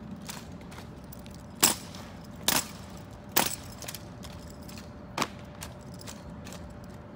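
Drill rifles being handled in a rifle drill routine: sharp slaps and clacks of hands striking the rifles, four loud ones at uneven intervals with a few lighter ones between.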